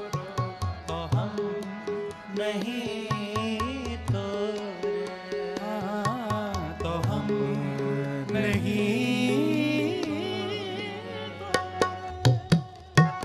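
Sikh kirtan music: harmonium holding sustained notes under a singer's long, wavering melodic phrases, with tabla keeping time. The tabla strokes come forward near the end.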